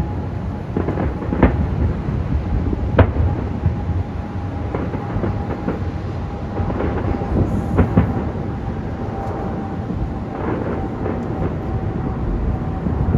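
Fireworks going off: a continuous low rumble of shells bursting, with several sharp bangs standing out.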